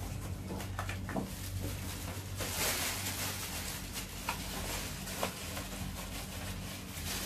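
Nylon wash bag and plastic sheeting rustling and crinkling as they are pulled and fitted around a split-type air conditioner's indoor unit, with a few light clicks and a louder rustle about two and a half seconds in, over a steady low hum.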